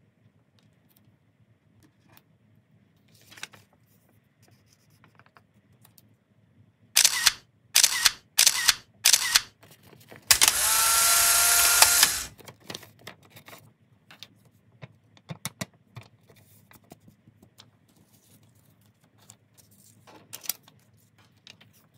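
Camera shutter sound effects, five loud clicks about half a second apart, followed by a two-second whir with a steady hum: a photo-booth effect. Faint paper handling ticks around them.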